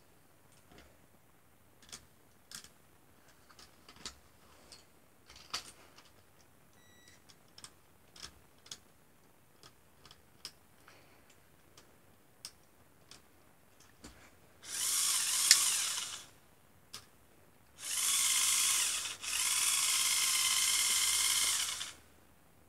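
Electric motors and gearing of a motorised Lego Technic halftrack model whirring in three high-pitched bursts, the last two nearly back to back, after a run of light scattered clicks.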